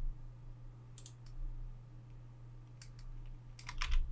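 A few scattered computer keyboard key presses and clicks: one pair about a second in, one near three seconds, and a quick cluster near the end, over a steady low electrical hum.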